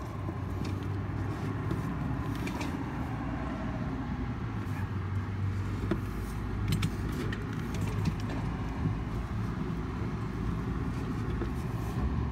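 A steady low engine hum with a few light clicks.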